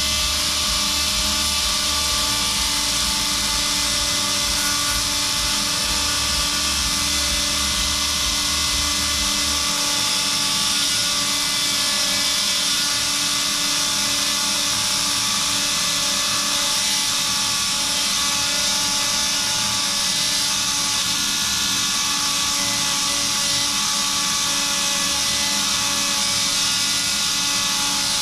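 Synthes Colibri II battery-powered surgical handpiece running an oscillating saw, a steady high whine with many overtones, cutting the proximal end of a metatarsal bone flat to make a surface for a plate. A low rumble beneath it stops about ten seconds in.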